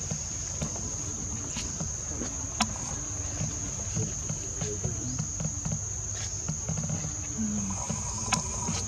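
Insects calling in one steady, unbroken high-pitched tone, over a low rumble with a few faint clicks.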